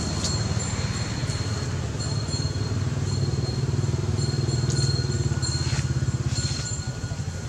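Steady low engine rumble with a fast even pulse, like a motor running close by, rising slightly in the middle. A faint high steady whine comes and goes over it.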